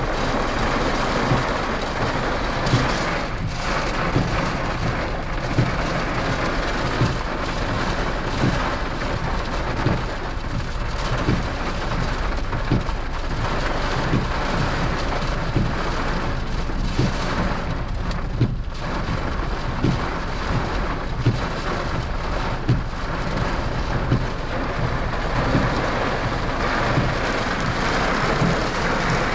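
Rain falling steadily on a car, with a short knock about every second and a half.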